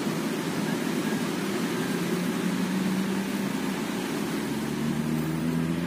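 Steady city traffic noise, with a vehicle engine's hum coming in about a second and a half in.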